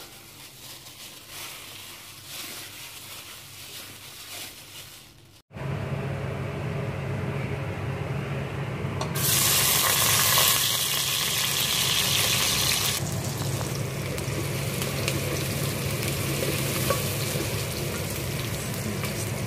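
Hands mixing spiced meat in a metal bowl. After a sudden cut about five seconds in, chopped onion sizzles in hot oil in a pan, much louder, with a stronger burst of sizzling for about four seconds in the middle, and is later stirred with a wooden spoon.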